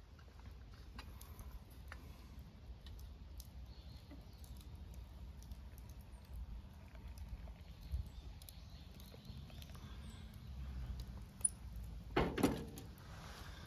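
Faint scattered small clicks and ticks over a low steady rumble, with a brief louder rustle or clatter about twelve seconds in.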